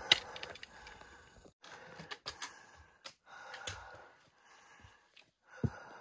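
A hiker breathing hard while climbing a rock scramble, with sharp clicks of trekking-pole tips and boots striking rock. The loudest click comes right at the start, and there is a low thump near the end.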